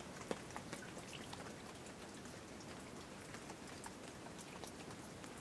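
Light rain and dripping water: a soft, steady hiss with scattered single drops ticking irregularly, one louder drop near the start.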